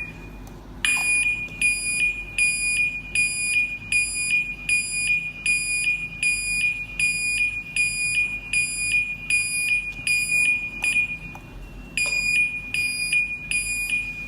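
MUCCO SNT-B712 electronic horn siren sounding a high, steady beeping tone that pulses about two to three times a second. The tone breaks off briefly near the start and again about eleven seconds in.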